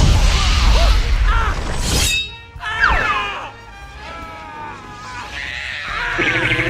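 Dubbed-in cartoon sound effects over film music: a loud crash at the start, a sharp burst about two seconds in, then quick sliding whistle-like glides, with the score swelling into held chords near the end.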